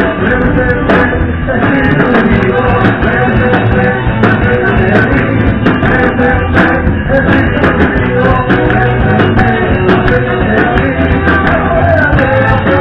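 Loud live Pentecostal worship music: a man singing into a microphone over an amplified band, played steadily without a break.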